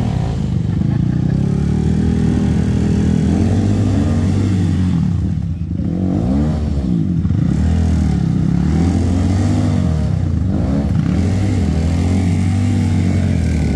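Yamaha WR155 dirt bike's single-cylinder four-stroke engine revving up and down over and over as it is ridden, with a short easing of the throttle about five and a half seconds in.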